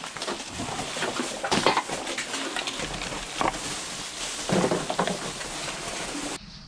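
Rustling plastic trash bags and clattering bottles, cans and other rubbish as it is gathered and bagged by hand, with many small knocks and clinks. It stops abruptly near the end.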